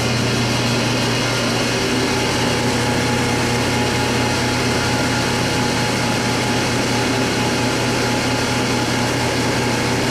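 Electric fans running: a steady whirring hum with a few unchanging tones over it.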